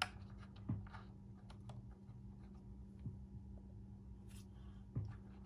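A few faint, scattered clicks and light knocks of hard plastic holster parts being handled and pressed together, one a little louder just under a second in and another near the end.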